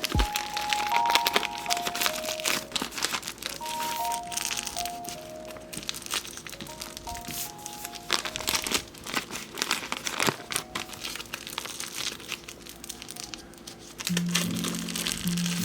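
Packaging crinkling and crackling in many short, irregular bits as a desk pad is unwrapped and handled, over soft background music.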